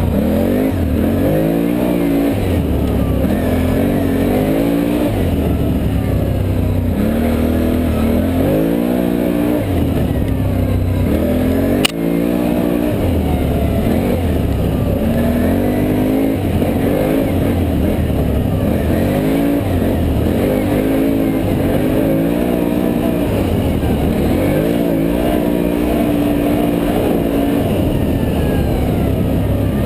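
Can-Am Renegade ATV engine under way, its pitch rising and falling over and over as the throttle is worked. A single sharp click about 12 seconds in.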